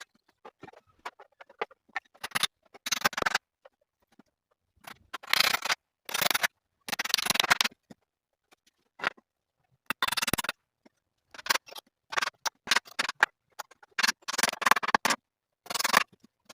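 Irregular short scraping strokes of a hand tool working wood, each lasting well under a second, with gaps between them.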